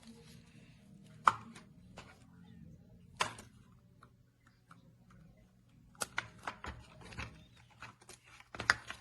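Sharp plastic clicks and taps from handling batteries and the RC remote control's battery compartment while two batteries are loaded: one loud snap about a second in, another a couple of seconds later, then a run of small quick clicks in the second half.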